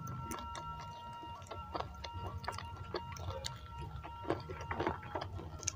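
Irregular crisp clicks and snaps of fresh petai (stink bean) pods being split and peeled open by hand.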